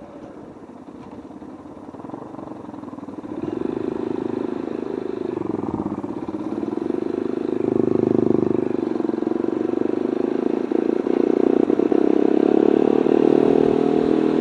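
Motorcycle engine running and growing louder from a few seconds in. Its pitch dips briefly about six seconds in, then it holds a steady, stronger note.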